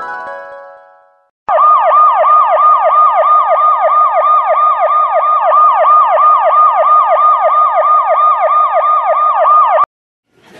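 Siren sound effect in a fast yelp, its pitch sweeping up and down about three to four times a second, starting about a second and a half in and cutting off suddenly near the end. Before it, the tail of a rising, sliding tone fades out.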